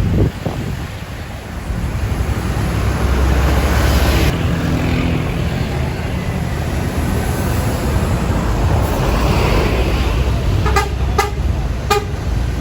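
Tour bus engine running steadily amid road traffic noise, with three short sharp clicks near the end.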